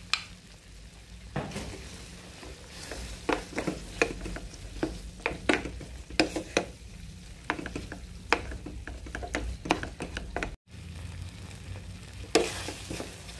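Spatula stirring flaked tuna into a thick tomato sauce in a frying pan, with irregular clicks and scrapes against the pan over a low sizzle of the simmering sauce.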